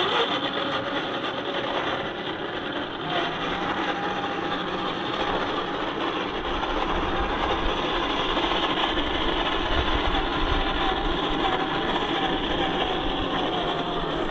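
Radio-controlled scale crawler truck driving: a steady whine from its electric motor and gearbox, rising right at the start, over continuous rattling and grinding noise, with a deeper rumble joining about halfway through.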